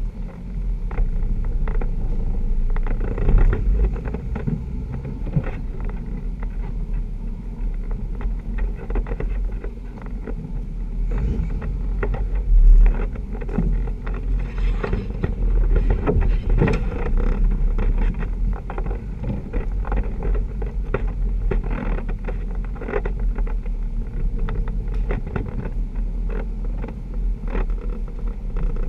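Jeep engine running at low crawling speed, close up, with many short knocks and rattles as the Jeep works over a rough, rooted trail. One louder knock comes a little before halfway.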